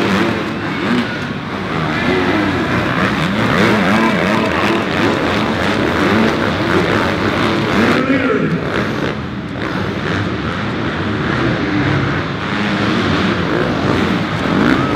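Dirt bike engines revving up and dropping off again and again as riders take the jumps on an arenacross track. The sound changes abruptly about eight seconds in.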